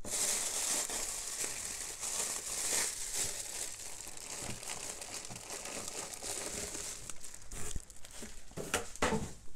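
Tissue-paper wrapping and a clear plastic bag full of jewelry crinkling and rustling as they are handled and pulled out of a cardboard box, with a few sharper handling noises near the end.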